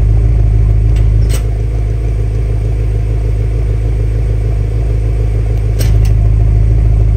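BMW F10 M5's twin-turbo V8 idling through its exhaust tips. About a second in, a click and the exhaust note gets quieter as the exhaust valve flaps close; near the end, another couple of clicks and it gets louder again as the flaps reopen.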